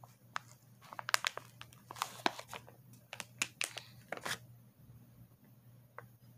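A crinkly plastic candy wrapper being torn open and crumpled by hand: a quick run of sharp crackles that stops about four seconds in.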